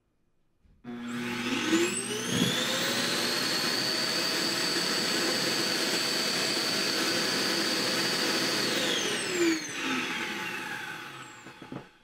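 The iRobot Roomba j7+ self-emptying base's suction motor evacuating the robot's dust bin into the base, pretty loud. It starts about a second in with a rising whine as it spins up, runs steadily for several seconds, then winds down with a falling whine and dies away near the end: one short spurt that empties the bin.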